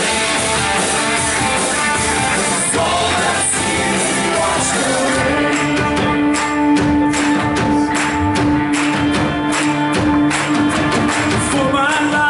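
Church worship band playing a song, with a steady percussion beat coming in about five seconds in.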